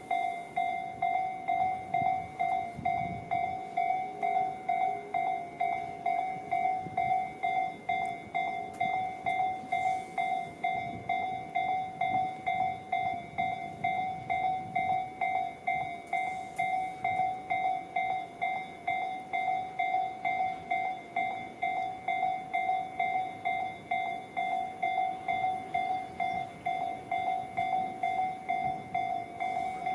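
Japanese railway level-crossing alarm ringing, a bright electronic ding repeating at a steady, fast pace without a break: the warning that a train is approaching the crossing.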